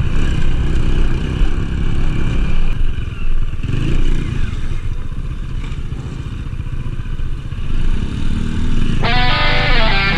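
Small motorcycle engine running as the bike is ridden off-road, with a steady low rumble. Music with plucked guitar-like notes comes in about nine seconds in.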